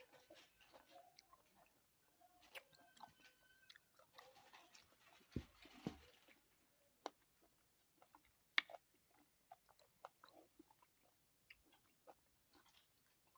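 Faint chewing and biting of fruit, with wet mouth clicks, a few soft crunches and two dull thumps midway.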